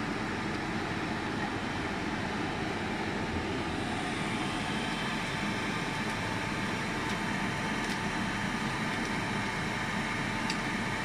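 Steady fan and machine hum of projection-booth equipment, with a few faint clicks near the end from the projector's film-path parts being handled.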